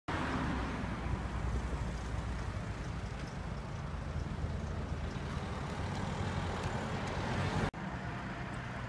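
Steady street traffic noise, a low rumble with hiss above it. It drops out for an instant near the end and comes back slightly quieter.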